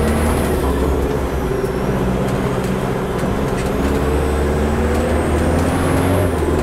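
Toyota FJ40's 15B-T turbo-diesel four-cylinder accelerating hard on a straight. The engine's pitch climbs, with a high whistle rising alongside, and drops sharply near the end as the revs fall or a gear is changed; a shorter climb and drop happens just at the start.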